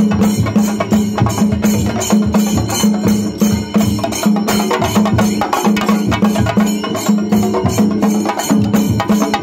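Chenda drum ensemble playing together: dense, rapid stick strokes on the drumheads over deeper strokes that keep a steady beat about twice a second.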